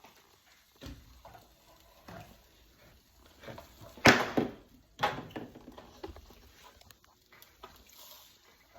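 A spoon or spatula knocking and scraping in a frying pan while food is stirred, a few scattered clatters with the loudest a little after four seconds and again at five.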